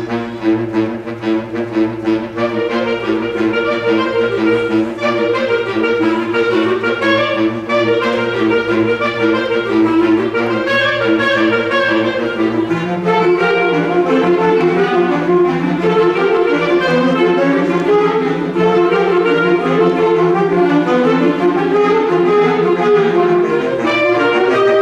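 Symphonic band playing, with woodwinds and brass moving over held low notes. About halfway through, the bass moves to a new sustained note.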